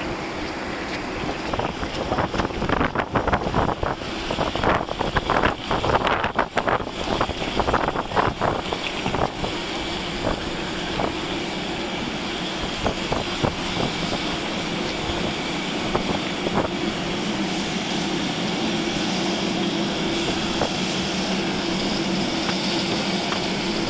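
Strong wind buffeting the microphone in gusts, with rain, over the first half. After that a steady, loud machine hum takes over, from the aircraft and ground equipment on the apron.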